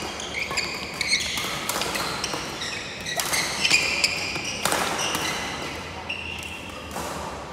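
Badminton doubles rally: sharp racket hits on the shuttlecock and the players' shoes squeaking on the court floor in short, high squeaks throughout.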